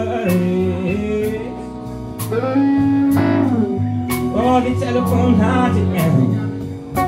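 Live blues band playing a slow blues: a male voice sings over electric guitars, keyboard, bass and drums, with regular drum and cymbal hits.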